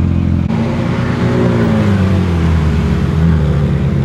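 Car engine running loudly; about half a second in the sound changes abruptly and the engine note sweeps down over about two seconds, then settles to a steady lower note.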